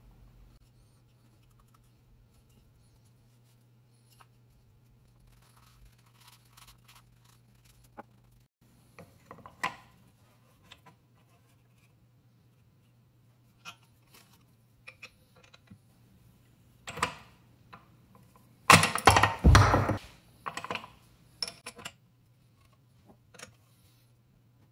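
A yew blank and a metal lathe chuck being handled: scattered clicks, taps and scrapes, then a burst of louder metallic clatter and knocks lasting about a second and a half, two-thirds of the way in, as the chuck is tightened on the blank.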